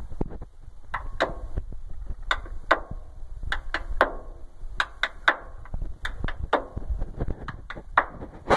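Irregular sharp metallic clicks and clinks, roughly one or two a second, as a small metal part is handled and worked by hand on a diamond-plate steel deck, over a low rumble.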